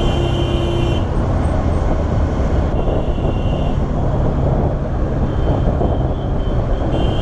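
Bajaj Pulsar NS200 motorcycle's single-cylinder engine running steadily through an aftermarket exhaust while riding, a continuous low rumble with road and wind noise.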